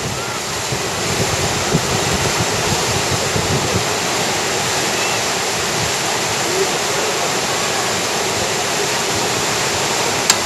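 Steady rushing of whitewater rapids on a slalom course, growing a little louder in the first second or so. A single sharp click near the end.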